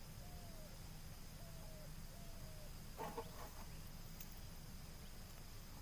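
Faint bird calls: a few short whistled notes, each arching slightly in pitch, then a brief cluster of calls about three seconds in, over a steady high thin whine and low background noise.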